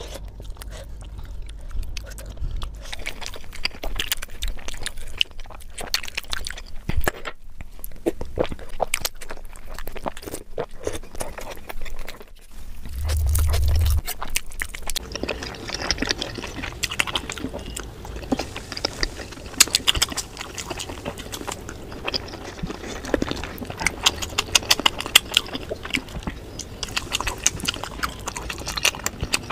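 Close-miked eating sounds of steamed momo dumplings and saucy noodles: biting and wet chewing with many small clicking mouth noises. A low rumble of about a second comes near the middle.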